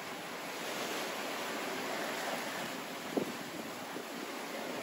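Steady rush of wind and water around a sailing yacht under way in strong wind, with one brief knock about three seconds in.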